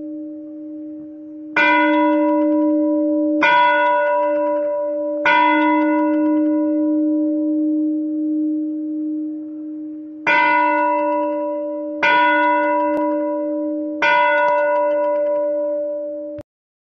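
A single bell struck six times at the same pitch, in two groups of three about two seconds apart with a pause between the groups. Each strike rings on and fades, carrying over the ringing from a strike just before, and the sound cuts off abruptly near the end.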